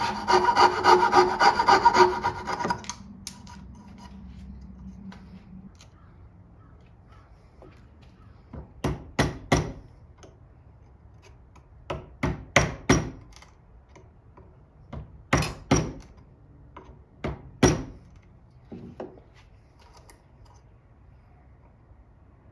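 A hand saw cutting wood with quick strokes for about three seconds. Then come sharp knocks on wood in small groups, spread over the rest of the time.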